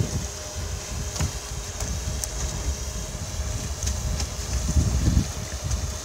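Wind buffeting the microphone in an uneven, gusty low rumble, over a faint steady hiss of moving water, with a few light clicks.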